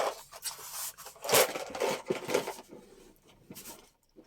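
Hands rummaging through a stash of craft supplies, objects rubbing, scraping and knocking against each other in irregular bursts, loudest about a second in.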